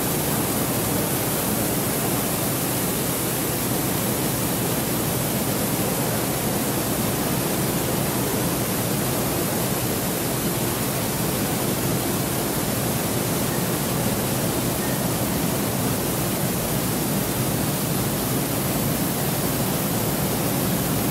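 Coffee-processing factory machinery, a belt-driven bean grader and blower, running with a steady, even noise and no distinct knocks or rhythm.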